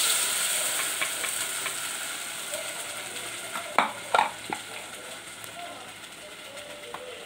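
Freshly added ground tomato, onion and spice paste sizzling loudly in hot groundnut oil in a clay pot, the hiss slowly dying down as it settles. Two sharp knocks a little past halfway.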